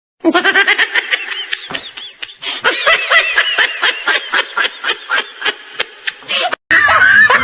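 Comedy laughter sound effect: a long, rapid run of high-pitched giggling syllables. It cuts off abruptly near the end, and a different sound effect begins.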